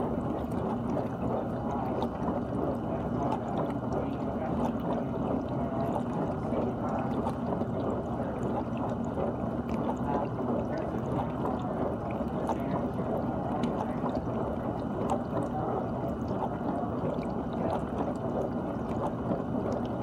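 GE dishwasher running its wash cycle: a steady, muffled rush of water spraying and sloshing inside the tub.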